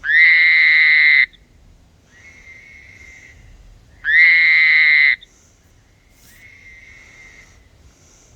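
Frogs calling back and forth: a loud, high-pitched call about a second long, starting with a slight upward sweep, repeated about four seconds later, and a fainter frog answering after each with a shorter call.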